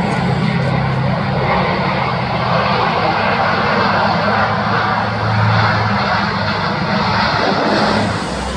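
Airbus A400M's four Europrop TP400-D6 turboprop engines at takeoff climb power as the aircraft passes overhead: a loud, steady roar over a low propeller drone.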